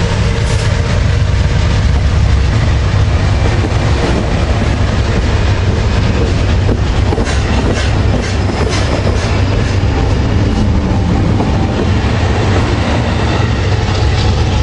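Amtrak passenger train passing close by, a GE P42 diesel locomotive followed by bilevel Superliner cars. It makes a loud, steady rumble, with the wheels clicking over the rail joints, most thickly about seven to nine seconds in.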